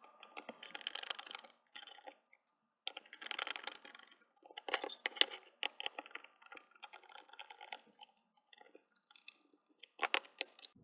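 Hand screwdriver backing small screws out of the MFJ-911H balun's enclosure: irregular bursts of scraping and clicking as the blade turns in the screw heads, with small taps as the box is handled.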